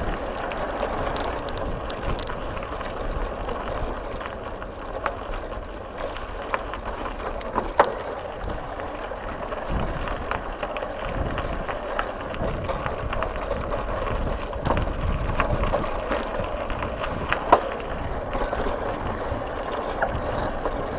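Bicycle tyres rolling over a gravel track: a steady rolling noise with scattered sharp clicks and rattles as the bike goes over stones and bumps.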